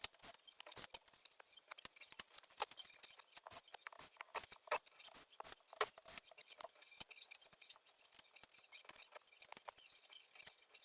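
A quick, irregular run of small, sharp clicks and taps, the sound of close-up hand work on small parts during the repair of a TV's flat flex cable.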